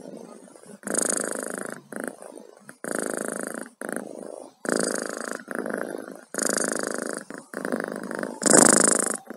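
A cat purring close to the microphone, in rhythmic breaths about a second apart; the last breath is the loudest.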